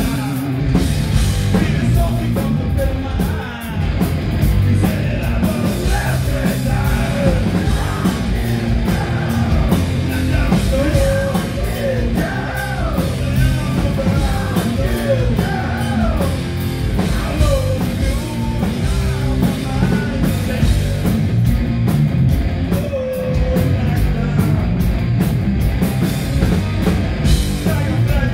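Live heavy rock band playing loud and without a break: distorted electric guitars through Marshall amplifiers, bass and drums, with singing.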